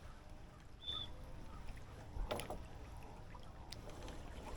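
Wind and water noise aboard a small sailboat under way, with a short high tone about a second in and a sharp knock a little after two seconds.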